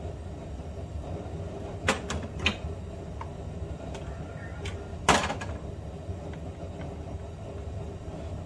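Sharp knocks and clicks of parts and tools being handled during work on a minivan's front blower motor: two about two seconds in and a louder one about five seconds in, over a steady low hum.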